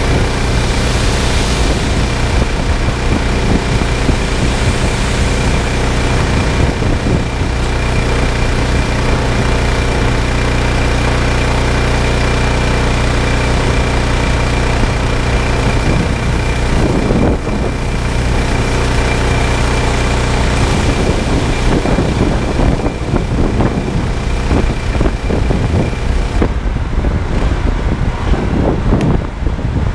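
Loncin G420 single-cylinder petrol engine running steadily under load, driving a belt-driven pressure washer pump, with a steady high hiss of water spray that drops away about three seconds before the end.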